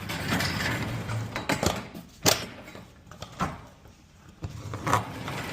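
Metal clatter and sharp knocks of garage door hardware being worked by hand as worn rollers are swapped out of the hinges. Scraping and rattling at first, then a few separate knocks; the loudest comes about two seconds in.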